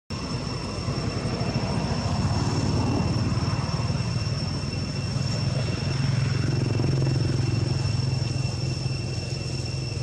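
A steady low motor drone, with two thin high steady tones running over it.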